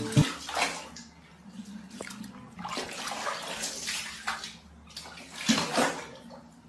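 Water splashing and sloshing in a plastic tub as a kitten moves about in its bath, in irregular splashes of varying strength.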